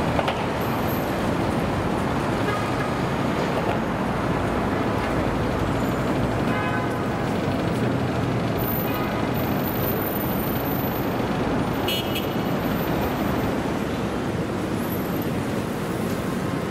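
City street traffic: a steady rumble of passing cars, with a couple of short higher pitched sounds, one near the middle and one about twelve seconds in.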